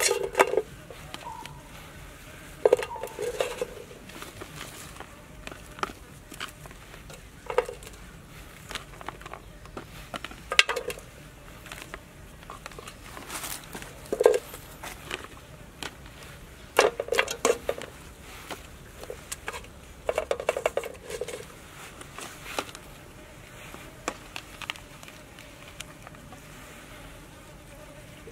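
Lemongrass stalks and other aromatics being laid into an empty metal pot, knocking against its bottom and sides in scattered short clunks every few seconds.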